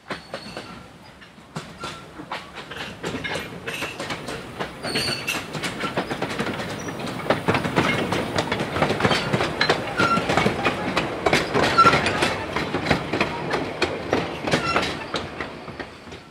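A narrow-gauge steam train passing close by: the wheels of the locomotive and its open passenger carriages click irregularly over the rail joints and points. The sound builds to its loudest around the middle, then fades near the end as the train moves on.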